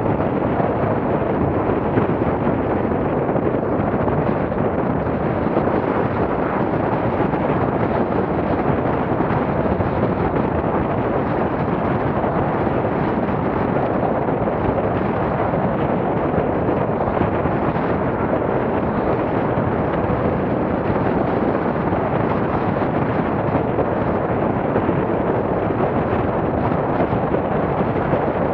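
Wind buffeting the camera's microphone: a loud, steady rushing noise that does not let up.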